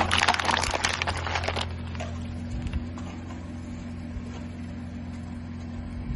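Car tyre rolling over watermelon slices, crushing them with a wet, crackling crunch and juice spattering for about the first second and a half. After that there is only a steady low hum.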